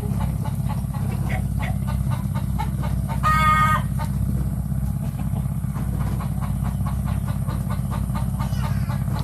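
A small engine runs steadily with a fast, even low pulse. About three seconds in, a chicken gives one short, steady-pitched call over it.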